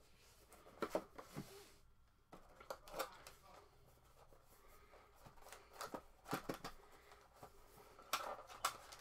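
Hands handling a cardboard trading-card box, sliding and prying at its box and sleeve: scattered light clicks, scrapes and rustles of card stock, in short clusters.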